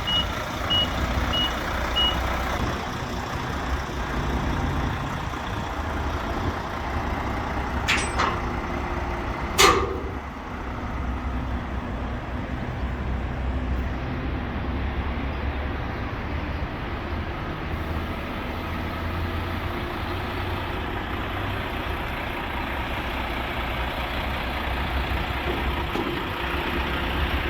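Utility tractor's diesel engine running steadily, with four short, evenly spaced beeps from a reversing alarm in the first two seconds. Two short, sharp sounds come about 8 and 10 seconds in; the second is the loudest moment.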